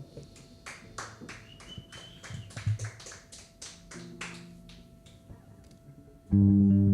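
A run of sharp rhythmic taps, about four a second, played over a quietly held note during a break in a live Latin pop song. Soft low guitar notes follow, and the full band comes back in loudly near the end.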